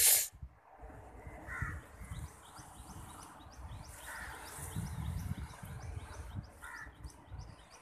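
Crows cawing, three short calls a couple of seconds apart, over a low rumble. A sharp bump right at the start.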